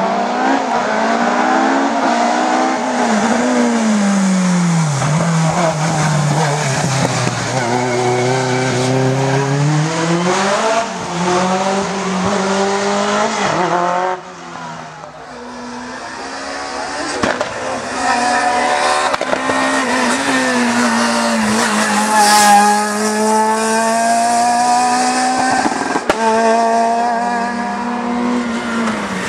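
Racing car engines revving hard, the pitch climbing and dropping repeatedly through gear changes, with tyre squeal. About fourteen seconds in the sound drops away abruptly, then builds up again as another car draws nearer.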